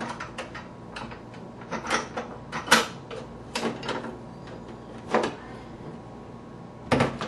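Plastic parts of a condiment dispenser knocking and clicking as the lid is fitted onto the housing: a scatter of short, sharp knocks, the loudest about three seconds in and another near the end.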